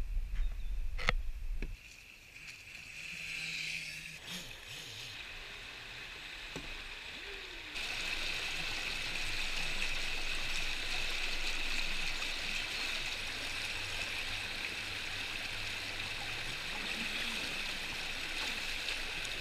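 A knock and low rumble in the first two seconds, then water rushing steadily over shallow river rapids close by, getting louder about eight seconds in.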